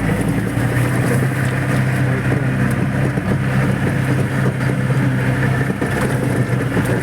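Jeep engine running steadily with a low, even hum, heard from on board during an off-road ride.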